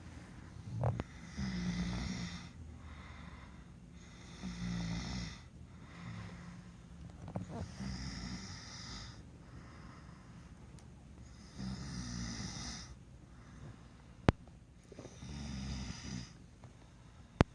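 A man snoring in his sleep, about five snores, one every three to four seconds. Two sharp clicks, the loudest sounds, come near the end.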